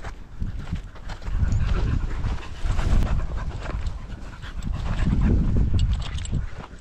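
Dogs panting close to the microphone, over a heavy, uneven low rumble on the microphone that swells and fades.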